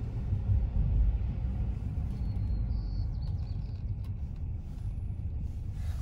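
Low, steady road rumble of a car heard from inside the cabin as it drives slowly in traffic, with tyre and engine noise and no speech.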